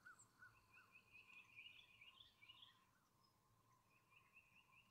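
Very faint chirping of small birds: a few short separate notes, then a rapid twittering run through the middle that comes back briefly near the end, over a steady faint high tone.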